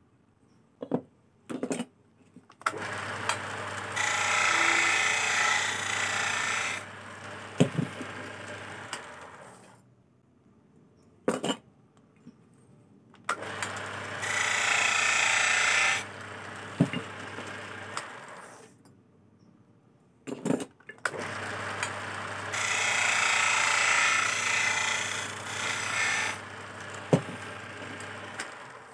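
Motor-driven wood lathe spinning a teak blank, run three times: each time the motor comes up to a steady hum, a hand-held turning chisel cuts into the spinning wood with a loud scraping hiss for about three seconds, and then the lathe runs down. Sharp clicks and knocks fall between the runs.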